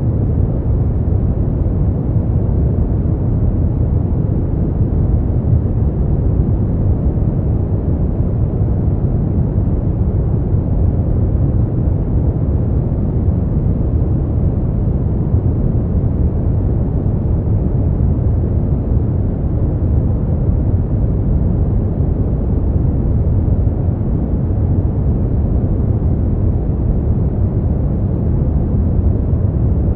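Steady brown noise: an even, deep rumbling hiss weighted toward the low end, unchanging throughout.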